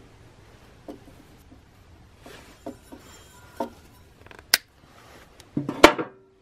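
Metal tools and parts being handled: a string of separate clicks and light knocks, some with a short metallic ring, ending in a louder clatter and sharp knock near the end.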